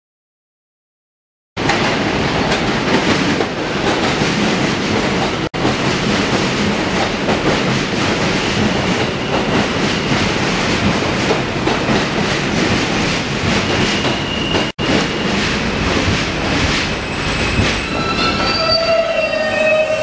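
New York City subway train running on the rails, with wheel noise and squeal, starting about a second and a half in. A high steady whine comes in near the end, followed by several steady tones at different pitches.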